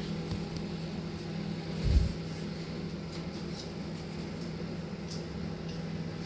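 Microwave oven running with a steady electrical hum while heating popcorn; a single low thump about two seconds in.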